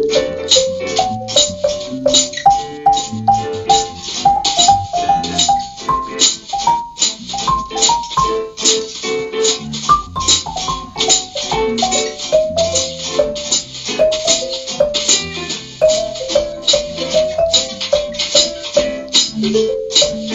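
Small swing jazz combo of marimba, piano, acoustic guitar, electric bass and drums, the marimba playing a running single-note melody line over a steady cymbal beat and bass.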